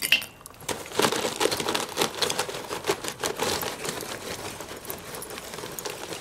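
Paper charcoal bag crinkling and rustling as a hand digs lumps of charcoal out of it, with small clicks and clinks of the lumps. It is busiest in the first few seconds, then dies down.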